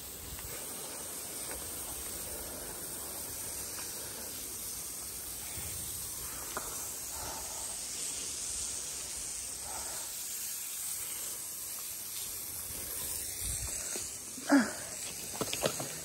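Steady hiss of light rain falling. A short, loud sound cuts in near the end.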